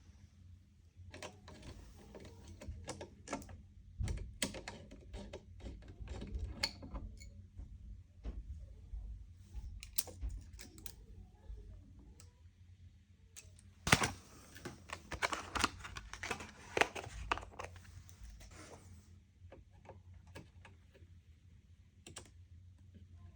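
Hands handling computer parts: a run of irregular clicks, taps and light plastic rattles. They come in clusters and are densest and loudest about fourteen to nineteen seconds in.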